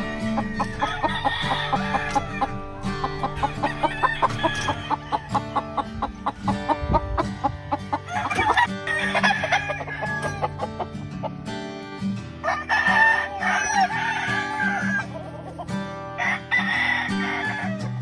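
Game roosters crowing about five times, one crow every three to four seconds, over background music with plucked guitar and a steady beat.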